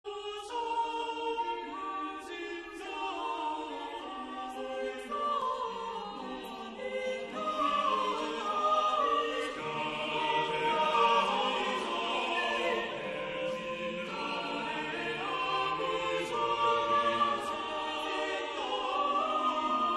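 Choral music: a choir singing held notes that shift slowly from chord to chord.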